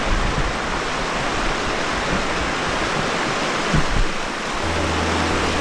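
Virgin River water rushing steadily through the canyon, a constant even noise.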